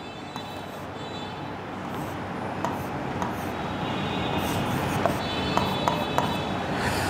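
Marker drawing on a writing board: a few light taps and scratches over a steady background hiss that grows gradually louder.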